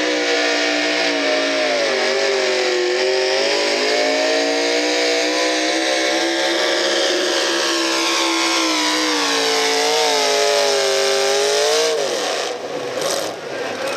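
V8 engine of an Oliver Super 88 hot rod pulling tractor running at high revs under load as it drags the sled, its pitch wavering up and down. About twelve seconds in, the revs fall away sharply as the pull ends.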